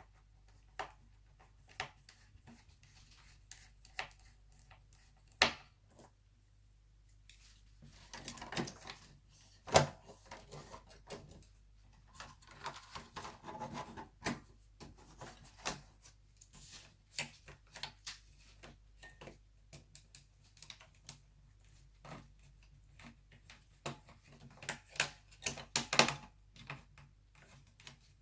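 Scattered small clicks, taps and rattles of hand repair work on a laptop: small screws and a screwdriver handled and screws driven into the chassis, with a few louder knocks, the loudest about ten seconds in.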